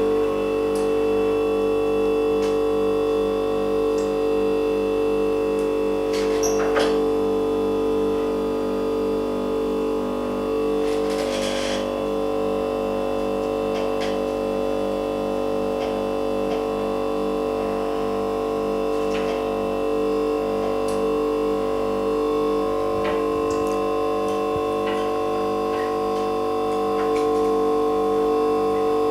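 Steady machine hum from a screen-separating machine, several fixed tones with a regular low pulsing under them, and a few faint clicks and a brief rustle of handling.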